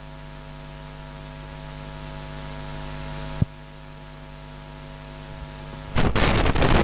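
Steady electrical mains hum with a faint hiss from a microphone and PA system, broken by one sharp click about three and a half seconds in. Near the end comes loud crackling and rustling as the handheld microphone is handled.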